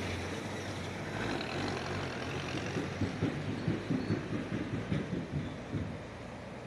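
Steady rushing of a fast, muddy river stream over stones, with a run of low, irregular thumps about halfway through.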